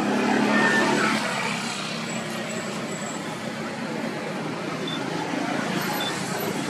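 A motor vehicle's engine passing, loudest in the first second and a half, then fading into a steady hum of road traffic.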